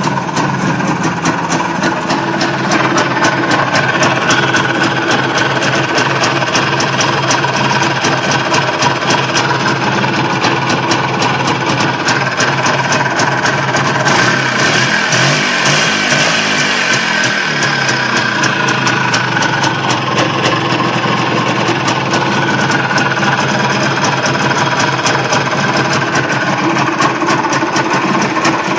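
IZh Planeta 5 motorcycle's single-cylinder two-stroke engine running at a steady idle, a fast even beat of firing strokes. Its speed wavers briefly about halfway through.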